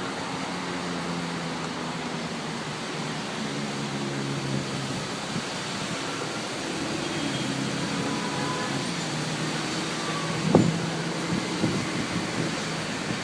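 Road traffic: a motor vehicle's engine hum under a steady hiss of wind and rain, with a single short knock about ten and a half seconds in.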